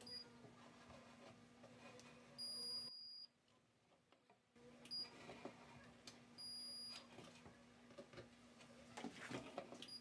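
Handheld electronic stud finder beeping as it is slid over the plywood to locate the wall studs: faint high beeps, one short near the start, a half-second beep about two and a half seconds in, another short one about five seconds in and a half-second beep near seven seconds, over a faint low steady hum.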